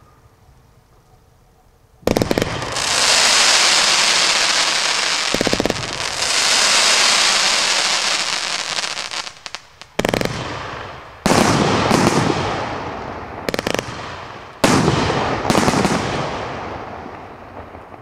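Firework cake of 30 mm tubes firing shot after shot: about eight sharp bangs, some close together, each followed by several seconds of dense crackling from silver crackle stars that slowly dies away. The shots come more quickly in the second half, and the sound fades out near the end.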